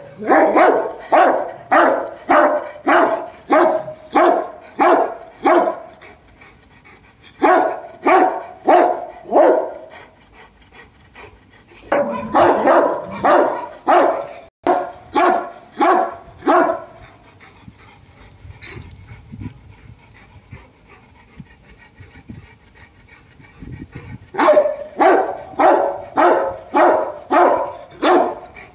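A Dogo Argentino barking in steady runs of about two barks a second, in four bouts with short pauses between and a longer lull after the middle.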